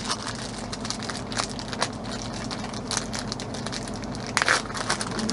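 Plastic wrapping crinkling and crackling in the hands, in small irregular rustles with a louder burst about four and a half seconds in: cheese being unwrapped for a sandwich.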